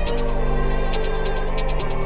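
Electronic background music: held bass and synth chords with a fast, even hi-hat pattern that drops out for the first second and comes back about a second in. The chord changes shortly before the end.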